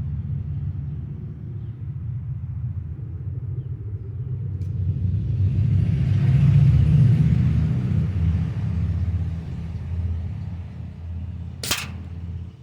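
A steady low rumble that swells and fades again around the middle. About a second before the end comes one sharp crack, a pellet striking at the acorn target on the metal propane tank.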